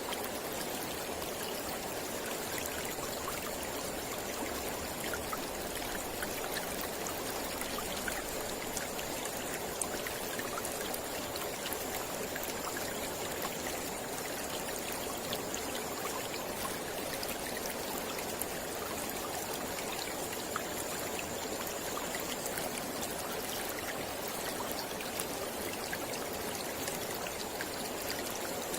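Mountain river flowing: a steady rush of water with small splashes and trickles throughout.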